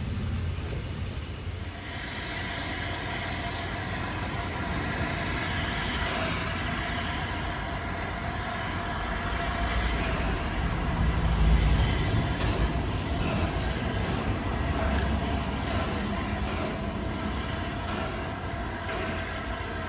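Steam-hauled train of LNER Peppercorn A2 Pacific 60532 Blue Peter rolling past on the line, a steady rumble of wheels on rail that is loudest about twelve seconds in.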